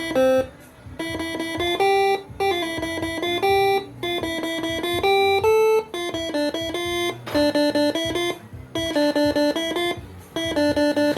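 Basuri six-trumpet telolet air horn playing a quick melody from its Moreno MS2 tune module: short held horn notes stepping between a few fixed pitches, with brief breaks between phrases.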